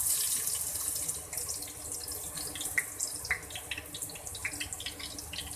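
Sliced onion sizzling as it hits hot oil: a loud hiss that starts at once and slowly eases, with scattered crackles and pops.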